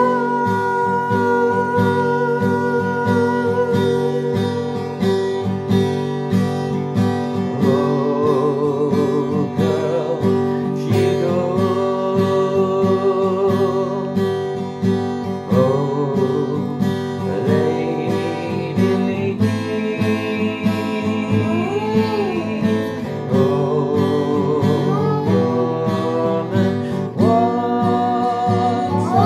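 Acoustic guitar strummed steadily while a man sings over it, holding some notes with vibrato.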